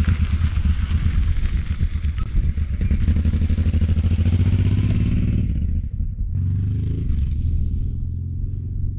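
Honda Transalp 600's V-twin engine riding past on a gravel road, a pulsing low rumble with a hiss of tyres on gravel, loudest about four and a half seconds in. It drops suddenly about six seconds in to a fainter, more distant engine note.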